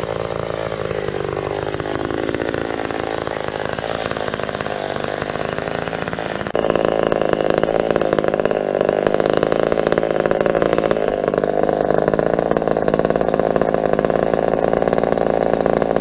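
McCulloch Pro Mac 570 two-stroke chainsaw running, its pitch wandering a little at first, then louder and steadier from about six and a half seconds in.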